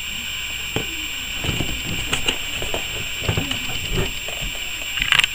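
Handling noise from a carded action-figure package: fingers shifting and rubbing on the cardboard and plastic blister, a scatter of small clicks and scrapes over a steady hiss, with a quick cluster of louder clicks near the end.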